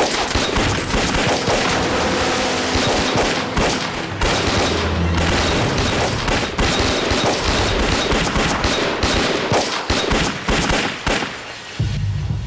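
A sustained exchange of gunfire, many guns shooting over one another in a dense, rapid volley that thins out near the end.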